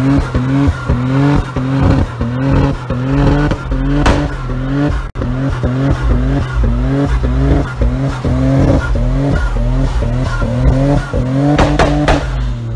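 Nissan 240SX running hard with its tyres spinning and squealing in an even pulse about twice a second, over a steady engine drone, with a sharper burst near the end.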